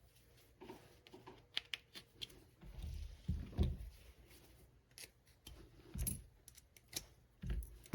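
Faint clicks and light taps of small hardware being handled while swapping the posts on an FPV drone's camera cage, with a few dull bumps from the parts being set down.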